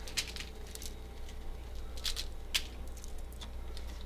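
Grated Parmesan being shaken out of a green Kraft plastic shaker canister over a fish fillet: a faint, irregular patter of short shakes and taps.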